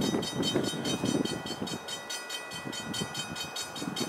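Railroad crossing signal bell ringing at a steady pace, a few strikes a second, over an uneven low rumble.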